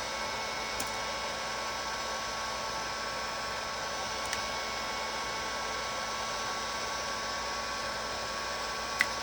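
Hot-air heat gun blowing steadily, a hiss with a faint steady whine, used to soften adhesive on the phone's screen parts. Small clicks of tools on the phone come about one, four and nine seconds in, the last the sharpest.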